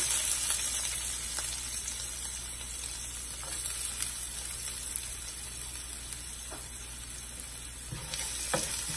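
Chopped onion and green chilli sizzling in hot coconut oil in a nonstick frying pan. The sizzle is loudest at first and then settles to a steady level. Near the end a wooden spatula stirs the pan.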